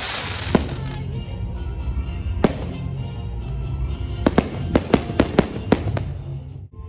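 Aerial fireworks bursting, with a few single bangs and then a quick run of sharp cracks from about four seconds in, over background music.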